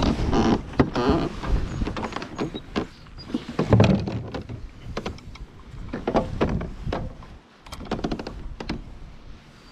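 Handling noises in a plastic fishing kayak: a foam cooler lid rubbing and scraping shut near the start, then scattered knocks and clatter of gear against the hull, the loudest a low thump about four seconds in.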